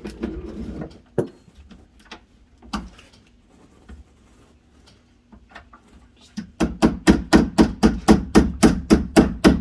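A door latch being tapped into its freshly chiselled mortise in the edge of a wooden slab door to test the fit: a few scattered knocks and handling, then from a little past halfway a run of rapid, even taps on wood, about five a second.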